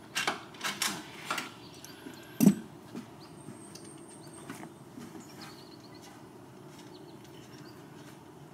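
An 8 mm socket wrench clicks several times in the first second and a half while loosening a tail-light bolt inside a car trunk. A single loud knock follows about two and a half seconds in, and after that only a faint background with a few high chirps.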